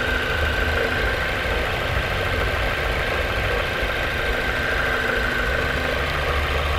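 Ford Mondeo Mk4 engine idling, with a steady high-pitched whine from the accessory belt drive; the noise was traced to a worn belt pulley (roller).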